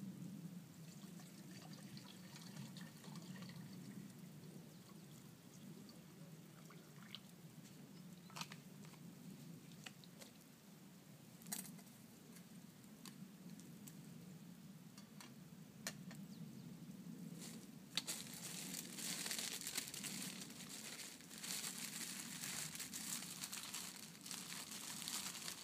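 Plastic food packet crinkling and rustling as it is handled, starting about two-thirds of the way in and the loudest thing heard. Before that, a low steady hum with a few light clicks of handling.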